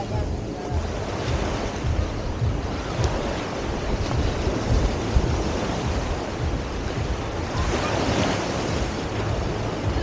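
Sea surf washing onto the beach in a steady rush, with wind buffeting the microphone in uneven low rumbles.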